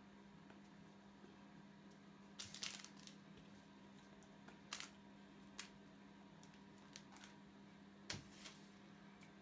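Near silence with a steady low hum, broken by a few short light clicks and knocks, the loudest cluster about two and a half seconds in and another near the end.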